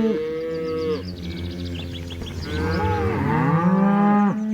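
Cow mooing: a long moo that fades about a second in, then a second long moo that starts about halfway through and holds until near the end.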